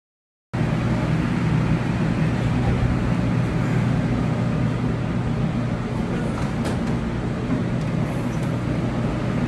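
Steady machinery hum and rushing air of a commercial kitchen, starting abruptly about half a second in.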